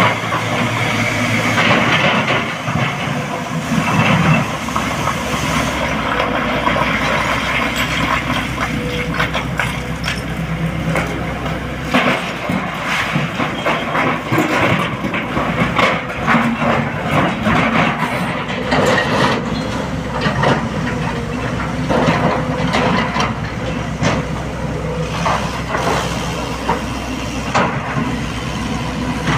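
Sany SY225 excavator's diesel engine running under load as its bucket digs into a pile of broken rock and dumps it into a tipper truck's steel bed, with frequent clattering and banging of stones throughout.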